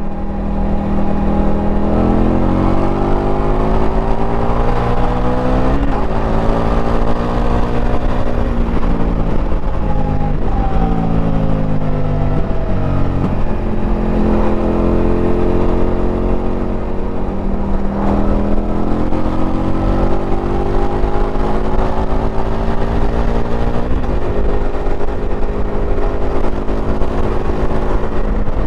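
Indian FTR 1200R's V-twin engine heard from onboard while riding: its pitch climbs under acceleration and drops back several times as the rider shifts gears and rolls off the throttle.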